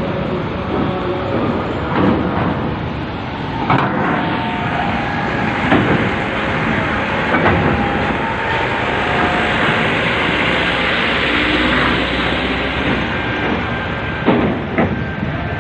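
Heavy trucks driving off a ferry: engine and rolling noise under a steady rush of strong wind, with irregular loud knocks every second or two.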